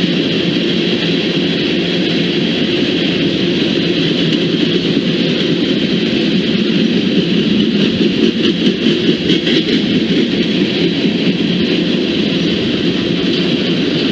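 A train passing: steady rumble and rolling wheel noise on the rails, with a stretch of rapid clatter in the middle.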